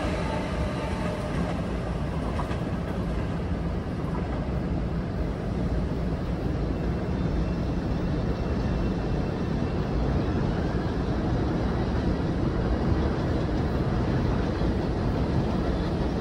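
A train rolling past, with a steady noise of wheels on rails.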